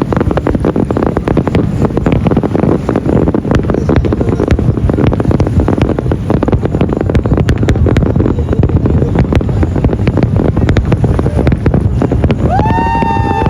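Dense, rapid crackling and popping of many fireworks going off together, loud and without a break. About a second before the end a steady pitched tone with overtones starts up over the crackle.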